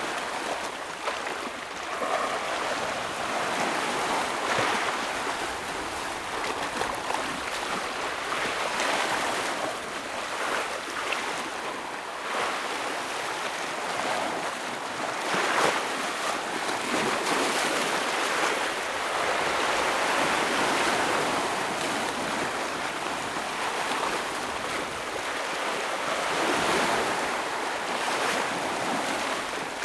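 Ocean waves breaking and washing over rocks, a continuous rushing surf that swells and eases every few seconds, with sharper splashes now and then.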